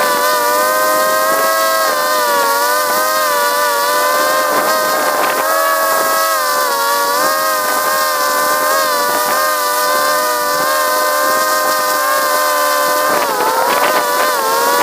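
Quadcopter drone's propellers and motors whining steadily in flight, heard up close. The pitch wavers up and down as the motors adjust speed, with clear dips about six seconds in and again near the end.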